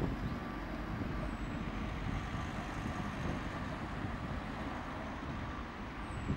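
Steady street traffic noise with a low rumble, as a car drives past close by. There are brief knocks at the start and near the end.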